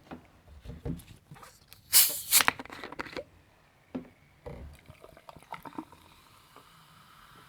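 Coca-Cola with ice being handled: scattered clicks and knocks, a short, loud hissing burst about two seconds in, and liquid sounds, ending in a faint steady hiss.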